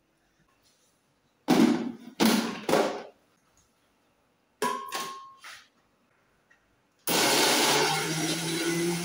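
A few sharp knocks and clunks. About seven seconds in, a glass-jar countertop blender starts and runs steadily with a constant motor hum, blending tomatoes and peppers.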